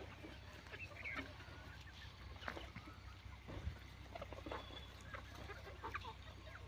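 Desi chickens clucking softly, with scattered short calls.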